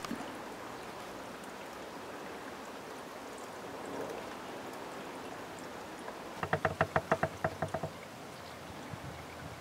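Quiet outdoor ambience with a steady soft hiss. A little past the middle comes a fast rattling run of about a dozen pitched pulses lasting about a second and a half.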